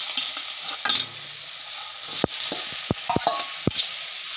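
Sliced onions sizzling as they fry in hot oil and spices in a kadai. Several sharp metal clinks against the pan come in the second half as the onions are handled and stirred.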